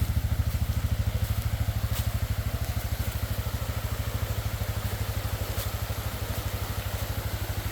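Four-wheeler (ATV) engine idling with a steady, even low pulse.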